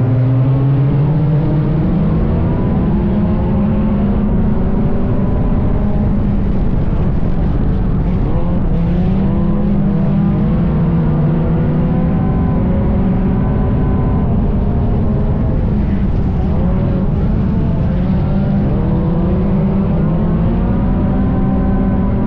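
Dirt-track race car's engine running hard, its pitch climbing and dropping over and over every few seconds as it accelerates and lifts off.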